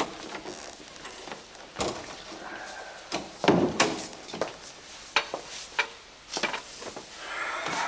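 Footsteps on a hard floor with scattered knocks and thuds of furniture as a man crosses an office and sits down in a leather armchair; the heaviest thud comes about three and a half seconds in.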